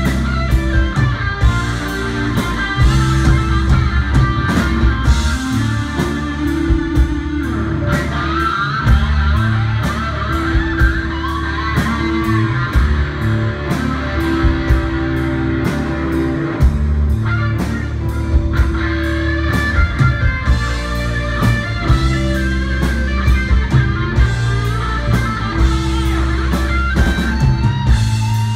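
Live rock band playing: electric guitar lines over bass guitar and a drum kit, with steady drum hits.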